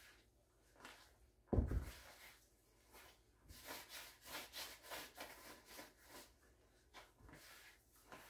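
Gloved hands kneading a soft dough of flour, hot water and oil in a plastic bowl: faint rubbing and squishing strokes, several a second, in the second half. About one and a half seconds in there is a single dull thump.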